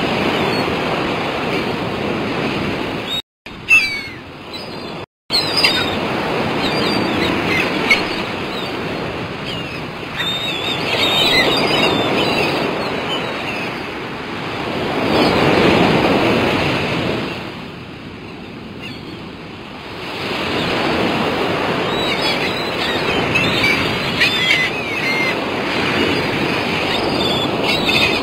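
Sea waves breaking and washing ashore, a rushing noise that swells and falls away in slow surges, with a quieter lull in the middle. The sound cuts out completely twice, briefly, a few seconds in.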